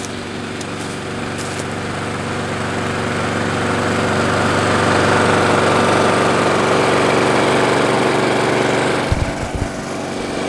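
Walk-behind lawn mower running steadily while being pushed across grass, growing louder over the first few seconds. There are a few low bumps a little after nine seconds.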